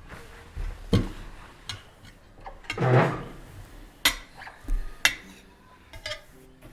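Dishes and cutlery clinking: a series of separate sharp clinks of cutlery on plates, with a heavier, longer clatter about three seconds in.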